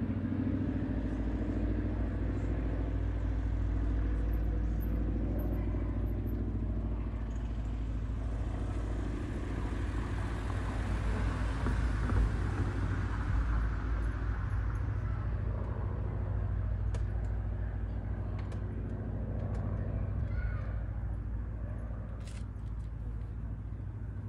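Road traffic: a steady low engine rumble, with a vehicle passing that swells and fades about halfway through.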